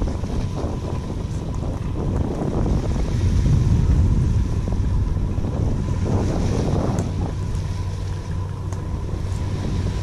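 Wind buffeting the microphone, a low rumble that swells about three to four seconds in, with a faint steady hum under it.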